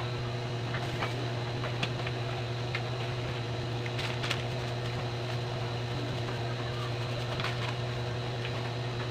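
A steady low machine hum with a few faint clicks scattered through it.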